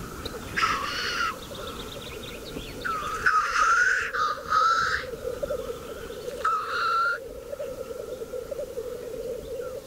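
Black grouse lek: a steady, distant bubbling chorus of displaying cocks. Four loud, harsh bird calls, each about half a second to a second long, sound over it.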